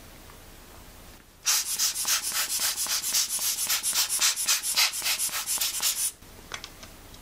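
Rubber hand air blower squeezed rapidly, giving a quick run of hissing air puffs, several a second, to blow dust out of camera lens parts. The puffs start about a second and a half in and stop about six seconds in.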